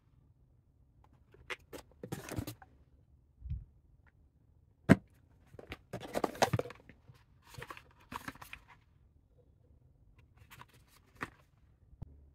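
Cardboard product boxes being handled: paperboard cartons rustling and scraping as they are lifted out of a box and set down, with a few sharp taps, the loudest about five seconds in.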